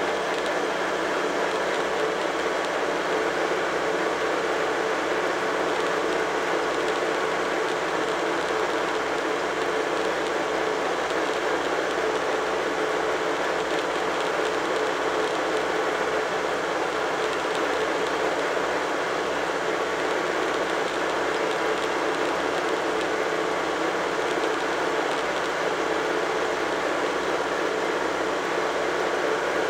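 Tractor engine running steadily at road speed, heard on board from beside its upright exhaust pipe: an unbroken drone over a constant hiss.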